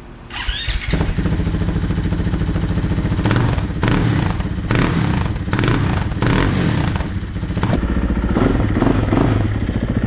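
2024 KTM 500 EXC-F single-cylinder four-stroke engine, fitted with a new FMF 4.1 slip-on exhaust, started on the electric starter with a short whine and catching within a second. It is then revved in a series of quick throttle blips before dropping back to a steady idle near the end.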